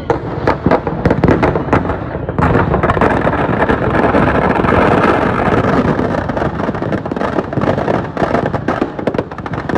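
Firecrackers packed inside a burning Ravana effigy going off in a dense barrage of bangs and crackles. The bangs run together into a continuous crackle about halfway through.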